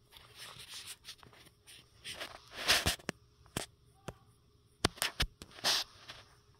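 Fabric rustling in short bursts, with several sharp clicks, from the bedding and the phone being moved about as the camera closes in on the cat.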